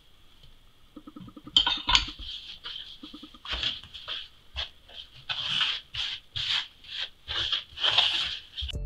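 Hands working flour, egg and milk together in a wooden bowl: rhythmic rubbing and swishing strokes of flour against the wood, about two a second, starting about a second and a half in and growing stronger. A faint steady high whine runs underneath.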